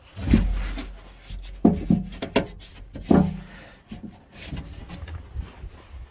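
A series of hollow knocks and clunks, about five sharp ones in the first three seconds and lighter taps after, over a low rumble: hands and tools working the lock rods and handle inside a car door.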